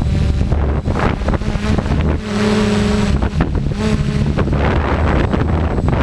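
Strong wind buffeting the camera's microphone: a heavy, unsteady rumble. A pitched hum cuts in and out a few times, loudest for about a second starting two seconds in.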